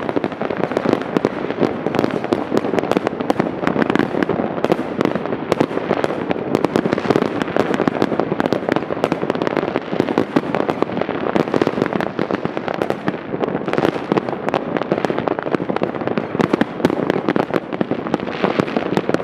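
Many fireworks and firecrackers going off at once: a dense, continuous crackle of bangs and pops with no pauses.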